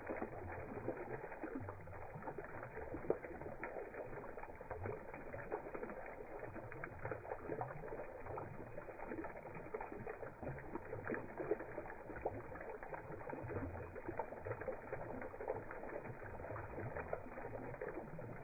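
Water falling from a tiered stone garden fountain, splashing and dripping into its bowls and basin, slowed down with the slow-motion footage so it sounds deep and muffled, full of small irregular plops.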